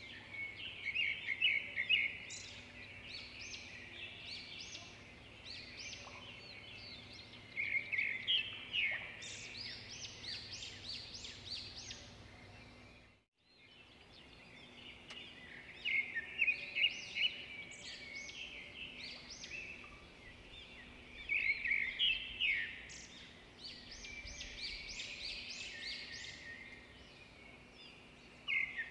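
Birds chirping and twittering, many short repeated calls coming in bursts, cutting out to silence for a moment about 13 seconds in and then resuming.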